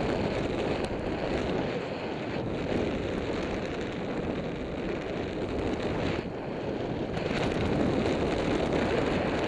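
Airflow buffeting the microphone of a camera on a tandem paraglider in gliding flight: a steady rush of wind noise that eases briefly a couple of times.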